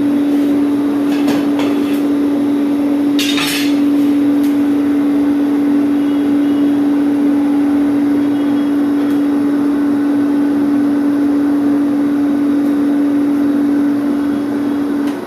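Electric air blower on a coal-fired silver-melting furnace running with a steady hum and rush of air. A few short metallic clinks sound in the first few seconds.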